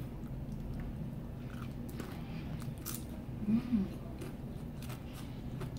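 Crunchy hard corn taco shell being bitten and chewed close to the microphone, with sharp crackles scattered throughout. A brief hum from the eater comes about three and a half seconds in.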